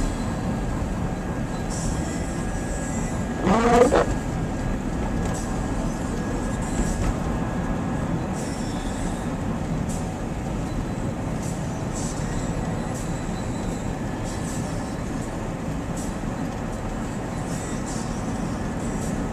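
Steady low rumbling noise, with a short rising squeal about three and a half seconds in.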